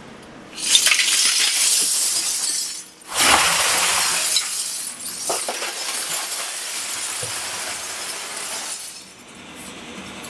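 Glass clattering and crashing, with sharp clinks of breaking glass, in two long bursts: one from about half a second to three seconds, then after a brief pause a longer one that dies down near the end.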